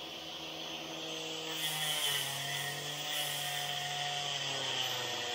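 A small electric power tool running as it cuts into the fibreglass deck mould, with a shop vacuum drawing the dust through its hose. The steady motor sound gets a little louder and its pitch drops slightly about two seconds in, as the tool takes up the load.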